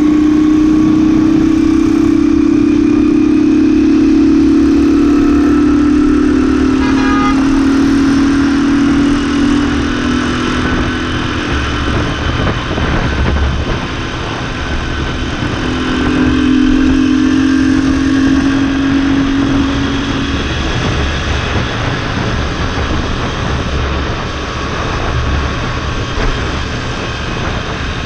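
Motorbike engine droning at road speed, its pitch sinking slowly, with wind rumbling on the microphone; the drone fades about ten seconds in and comes back for a few seconds later on.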